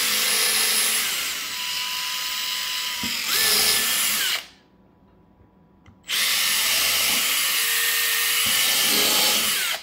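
Cordless drill driving number six pan-head screws through the plastic crate wall into the divider, with no pilot holes, in two runs of about four seconds each; the second starts about six seconds in. During the first run the motor's whine dips lower for a couple of seconds and then rises again.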